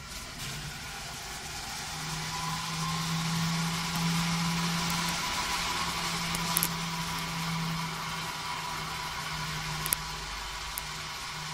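Submersible nano-bubble aerator starting up and running, turning out a cloud of fine bubbles: a steady motor hum that settles in about two seconds in, over a steady hiss of water and air. Two brief clicks come later.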